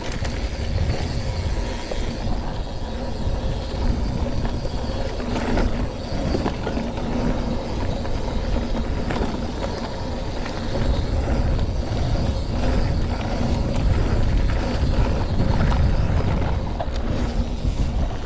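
Mountain bike riding down a rough dirt trail: a steady rumble of wind on the microphone and tyres over the ground, with scattered knocks from bumps.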